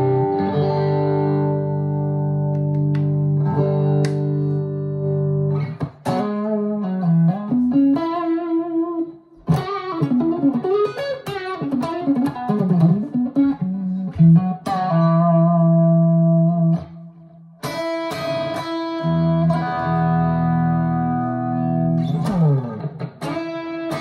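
Amplified 2023 PRS Special Semi-Hollow electric guitar. It rings out sustained chords, then plays a run of fast single-note lead lines with string bends from about six seconds in. After that come more held chords and a quick descending slide near the end.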